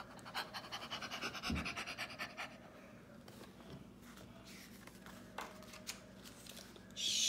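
Soft rustling and handling of a paperback picture book's pages as they are turned, with a few light taps. Near the end a loud, drawn-out "shh" hushing sound begins.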